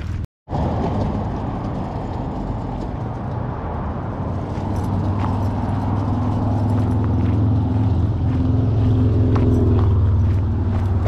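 A motor vehicle's engine running close by, a steady low hum that grows louder through the middle and eases near the end, with footsteps crunching on gravel. The sound cuts out for a moment just after the start.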